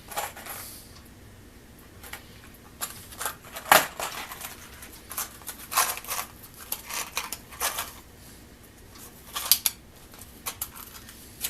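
Irregular clicks and short scrapes of small hand tools and metal parts being handled while working on electrical wire, with one sharper click about four seconds in.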